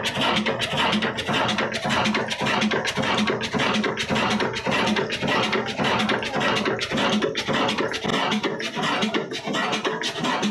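Old Ruston Hornsby 22 HP diesel engine running steadily, a loud mechanical clatter with an even, repeating beat of knocks.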